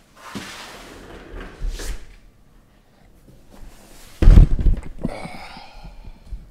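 A sealed cardboard case of trading-card boxes being handled on a table: cardboard rubbing and scraping, then one heavy thud about four seconds in as the case is turned over and set down, followed by lighter scraping.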